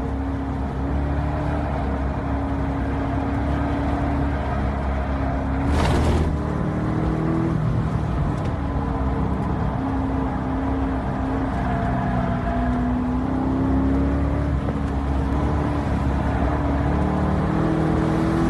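2012 Corvette Grand Sport's 6.2-litre LS3 V8 running hard under load on a race track, its note rising and falling gently as the car drives. There is a short, loud burst of noise about six seconds in.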